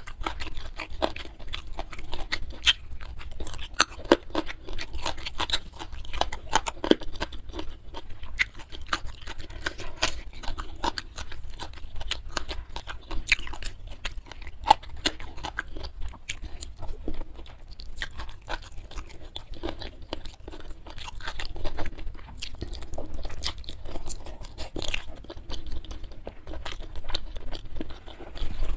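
Close-miked chewing and crunching, a dense run of small wet mouth clicks and crackles: a person eating spiced chicken feet by hand.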